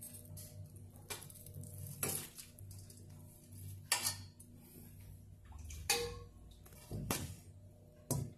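Metal tongs clanking against a stainless steel bowl as simmered beef tongues are lifted out and set in it: about half a dozen sharp clanks a second or two apart, over a faint steady hum.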